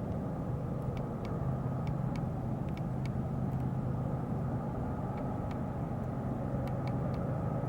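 Steady low engine rumble of a pair of CSX ES44AH diesel locomotives, growing a little louder, with faint scattered ticks.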